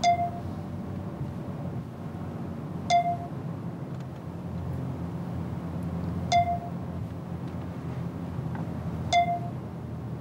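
Short computer alert pings from a MacBook, four times a few seconds apart, over the steady hum of a car cabin: the network scanner's notice that it has found another wireless network.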